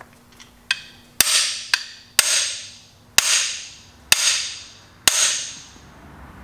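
Lightweight bodywork hammer striking the steel driver bar of a cam bearing installation tool, driving a cam bearing into an engine block's cam bore. There are five hard blows about a second apart, each ringing out metallically, with a couple of lighter taps between the first ones.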